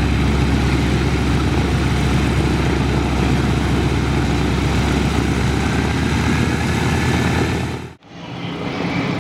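Propeller aircraft engine running loud and steady as the plane flies its display, with a steady low hum under it. The sound cuts out abruptly about eight seconds in and comes back a moment later.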